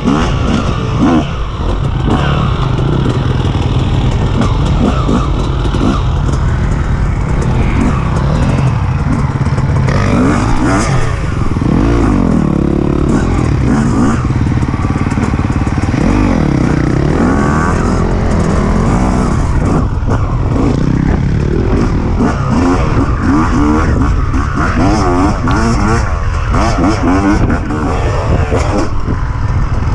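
Dirt bike engines revving up and down hard as the bikes ride through deep sand, heard up close from on board.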